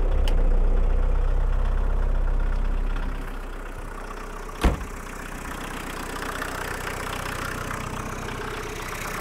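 Volkswagen Mk1 Rabbit's 1.6-litre turbodiesel engine running just after starting, louder for the first three seconds, then settling into a steady low idle of about 500–600 RPM, low enough to rattle the car. A single sharp click about halfway through.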